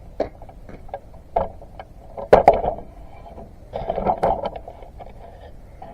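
Firewood being unloaded by hand: irregular hollow wooden knocks and thuds as logs are handled and dropped. The loudest knock comes a little over two seconds in, and a quick cluster of knocks follows about four seconds in.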